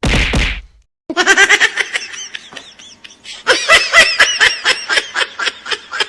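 A short, loud noise right at the start, then a person laughing hard in rapid high-pitched bursts, about four to five a second, carrying on to the end.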